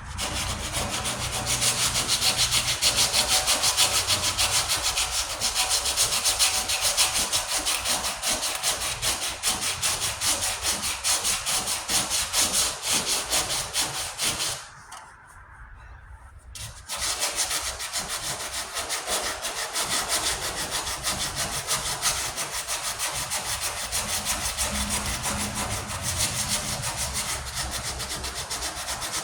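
Coarse 40-grit sandpaper being worked by hand over the primed patch on a steel truck tailgate: a steady rasping in quick back-and-forth strokes, with a pause of about two seconds near the middle.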